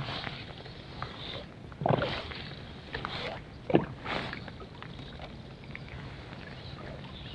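Water sloshing and splashing, with two short, louder splashes about two and four seconds in.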